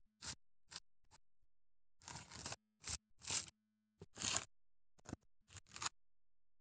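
Coconut husk being torn off the nut by hand in fibrous strips: a run of short, rasping rips and scrapes, some in quick clusters, the loudest a little past three seconds and just after four seconds in.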